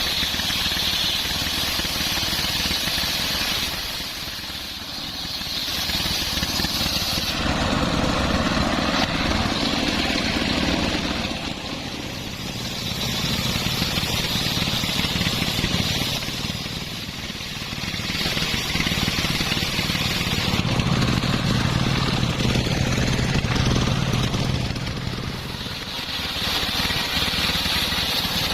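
Engine-driven homemade circular sawmill running, cutting coconut-palm timber. Its sound swells and eases in cycles every several seconds, with short quieter dips between the louder cutting stretches.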